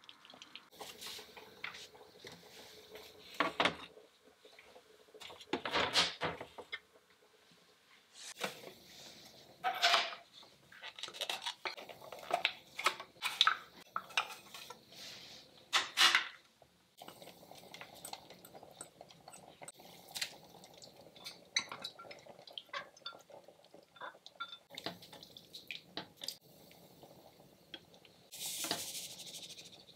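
Kitchen cookware sounds: a spatula stirring and knocking in a stainless-steel saucepan, and glass food containers clinking as they are handled. The result is a string of separate clinks, knocks and scrapes, a few of them sharply louder.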